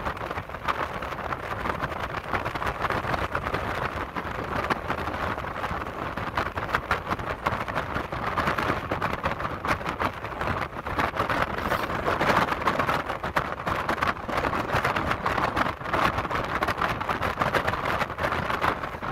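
Steady rushing wind and tyre noise from a vehicle driving along a highway.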